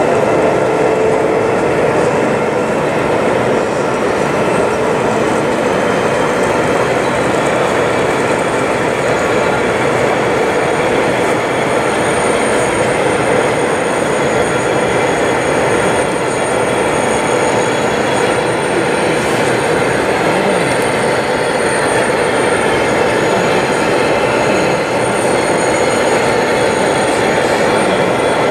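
7mm O gauge model diesel locomotives with DCC sound running past on the layout: a steady recorded diesel engine sound from their onboard speakers, mixed with the wheels running on the track.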